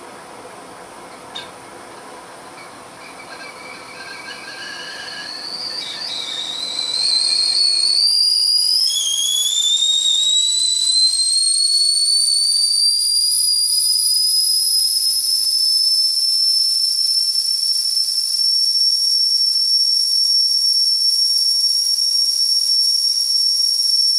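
Whistling teakettle coming to the boil. A hiss with faint, wavering whistle tones builds over the first several seconds. About seven seconds in, the whistle sounds out loud and high, rising in pitch for several seconds before holding one steady tone.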